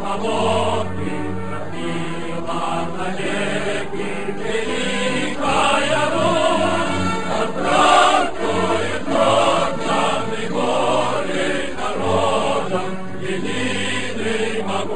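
Choral music: a choir singing a slow chant over long held low notes.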